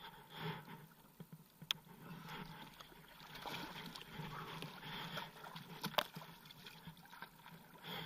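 Water sloshing and gurgling against the hull of a Yamaha SuperJet stand-up jet ski moving slowly, in uneven swells, with two sharp clicks, one near two seconds in and one about six seconds in.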